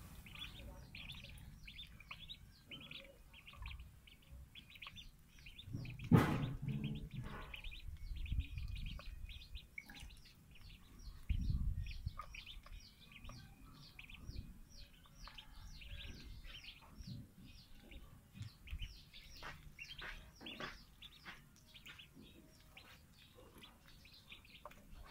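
Ducklings peeping, a continuous run of short, high, downward-sliding peeps, several a second. A loud thump about six seconds in, and a duller low bump near twelve seconds.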